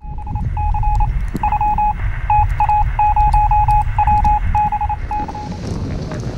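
Electronic beeping: a single pitch keyed on and off in short and longer beeps in irregular groups, stopping about five and a half seconds in, over a low rumble of wind on the microphone.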